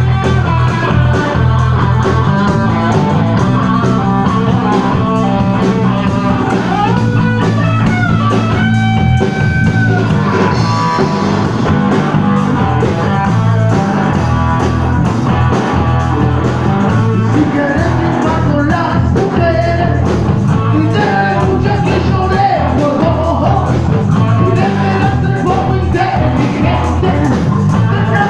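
Blues-rock band playing: electric guitar over a steady bass line, with singing.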